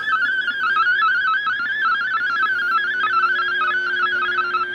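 Unidentified shortwave signal through a Lafayette KT-200 receiver's speaker, tuned near 5.8 megacycles: a warbling tone that hops quickly between a few pitches. A steady lower tone joins about two seconds in.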